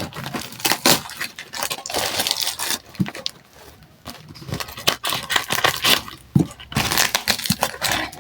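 Small nail drill bits and their plastic packaging being handled: irregular clicks, rattles and crinkling, with a quieter pause about three seconds in.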